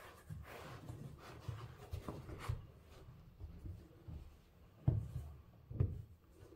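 Cotton-gloved hands rubbing and handling a sneaker and its insole, with a few soft knocks. The loudest knocks come near the end, about a second apart.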